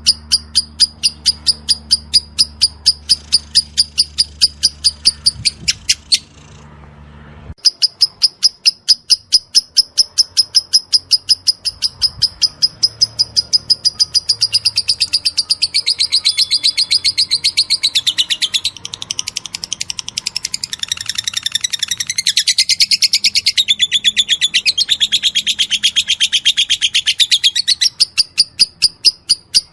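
Lovebird in 'ngetik' (typing) song: a fast, even string of sharp high chirps, about five a second. They break off briefly about six seconds in, then turn into a denser, shifting warble in the second half before the even chirping returns near the end. A low steady hum underneath stops about seven seconds in.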